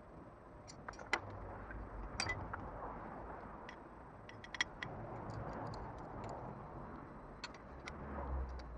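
Light metallic clicks and clinks of exhaust manifold studs, nuts and a wrench being handled and fitted at a 4G63 cylinder head, irregular and scattered, the sharpest about a second in, two seconds in, midway and near the end.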